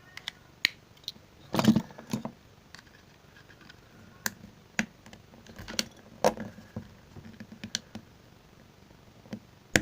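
Irregular clicks and knocks of pliers gripping and working at a stuck pin in a small plastic radio's casing, with a louder cluster of knocks about a second and a half in.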